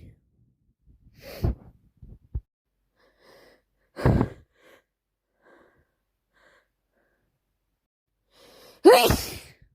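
A woman with a cold sneezing repeatedly, with sudden sneezes about a second and a half in, about four seconds in, and the loudest near the end, which comes after a quick in-breath and ends in a falling voiced "achoo". Faint breathing and sniffling fill the gaps.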